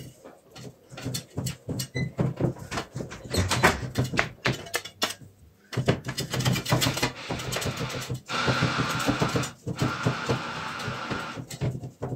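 A flat metal scraper pressing and smoothing thin yufka pastry sheets in a round metal baklava tray: a run of many quick clicks and taps, then two longer, even scrapes, about eight and ten seconds in.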